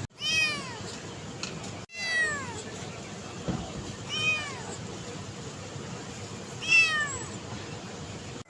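A cat meowing four times, spaced a couple of seconds apart, each call rising and then falling in pitch; the last meow is the loudest.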